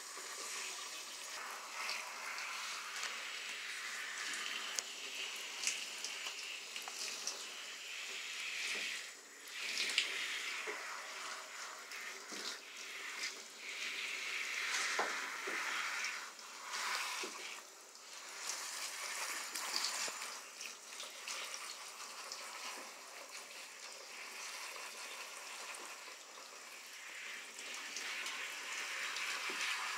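Water from a handheld shower spraying and splashing in a shower tray while hands rub and rinse a wet Chihuahua's fur; the hiss swells and fades repeatedly.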